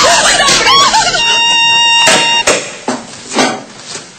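A girl screaming and wailing in short rising-and-falling cries for about a second. A steady high electronic tone then holds for about a second, followed by quieter scattered knocks and footsteps.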